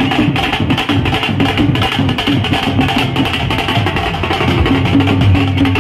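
Loud music driven by fast, steady drumming, from a street procession.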